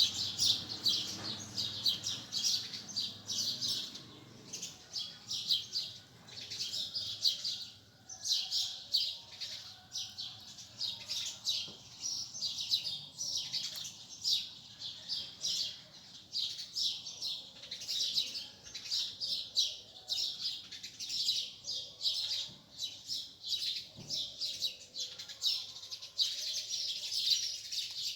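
Many small birds chirping together: a dense, continuous chorus of short, rapid, high chirps overlapping one another.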